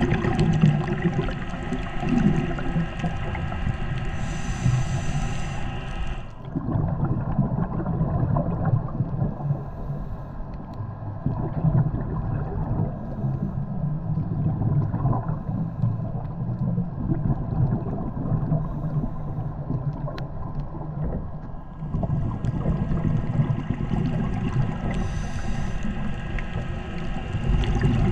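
Underwater ambience picked up by a submerged camera: a low, muffled rumble of moving water with a faint steady hum running under it. The sound turns hissier at the start and again from a little past the middle to the end.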